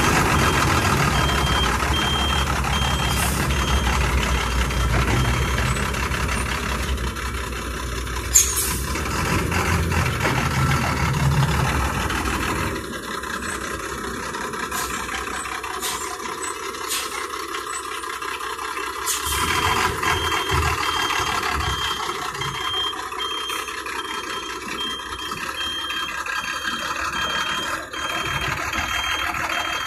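Daewoo GDW6120HG bus reversing: its reverse warning beeper sounds in even, rapid beeps over the engine running, with a few short sharp hisses of air. The engine is louder at first and eases off less than halfway through; the beeper pauses in the middle and then resumes.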